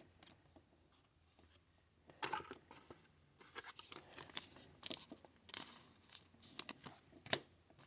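Faint rustling, crinkling and light clicks of trading cards and their foil pack wrappers being handled, starting about two seconds in.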